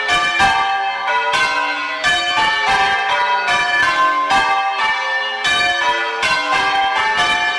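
The ring of six church bells at an old tower (tenor 11 cwt, in G), rung in full-circle change ringing: an even run of strikes, about three a second, each bell ringing on into the next. The bells have a clonky, old-fashioned tone.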